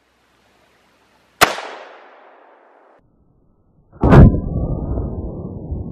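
Two shots from an AR-15 chambered in 300 Blackout firing heavy subsonic rounds, about two and a half seconds apart. The first is a sharp crack that dies away over a second or so. The second is louder and is followed by a long low rumble.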